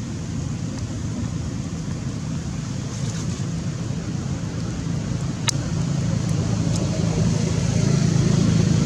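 A steady low rumble, growing louder near the end, with one sharp click a little past halfway.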